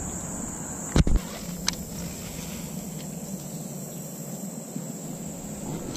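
Steady high-pitched chorus of insects, with a double thump about a second in.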